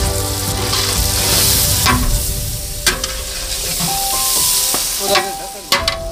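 Tomatoes, onions and chillies frying in hot oil in a large aluminium degh, sizzling as a metal spatula stirs them. The sizzle swells twice, with a few sharp knocks.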